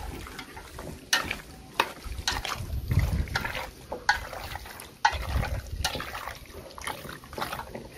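Wet squelching of raw duck pieces being mixed by hand with mashed fermented tofu marinade in a stainless steel pot, with scattered sharp clicks as a utensil or fingers knock the pot.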